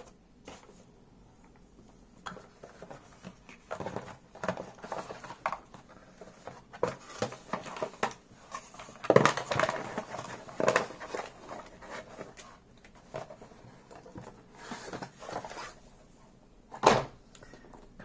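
Irregular clicks, knocks and light rustles of things being handled, in a small room, with one sharp, louder knock near the end.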